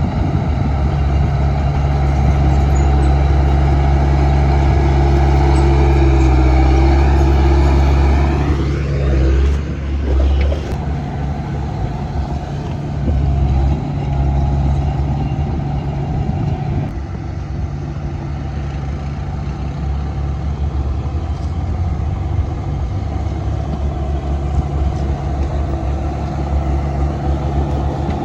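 Komatsu D31P bulldozer's diesel engine running at high revs; about nine seconds in the pitch drops and it runs on at lower revs for the rest of the time.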